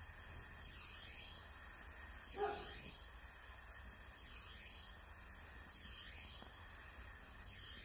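Faint steady hiss of an oxy-fuel gas torch flame heating a bronze fitting for silver brazing. One short, louder sound cuts in about two and a half seconds in.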